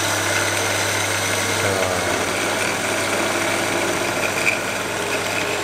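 Unbranded electric burr coffee grinder running steadily over a low motor hum, grinding coffee into a cup. It runs normally, without a grating 'grrr': the sign that its burrs are now set right after recalibration.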